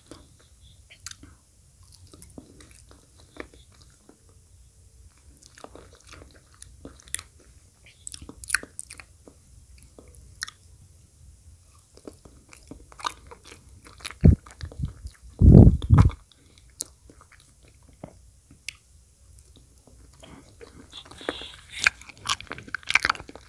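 Close-miked wet mouth sounds of eating a soft banana: chewing with many small lip smacks and wet clicks. Two loud low thumps come a little past the middle, and the clicks grow busier near the end.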